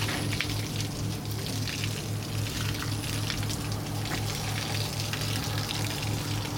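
Stationary Brighton Terrier steam tank engine 32678 hissing steadily, with a low hum pulsing about four times a second underneath.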